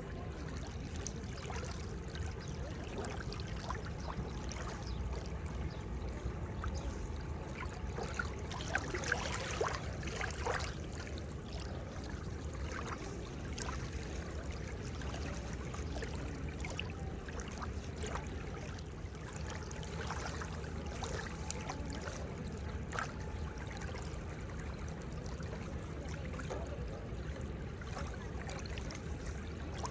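Seawater lapping at the shore: a steady wash with many small splashes and trickles, a little busier and louder about 8 to 11 seconds in.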